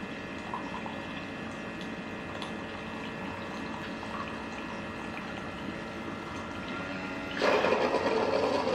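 Keurig K-Mini single-serve coffee maker heating water with a steady hum and faint water sounds. About seven and a half seconds in, its pump starts loudly, pushing hot water out into the cup during a water-only cleansing brew.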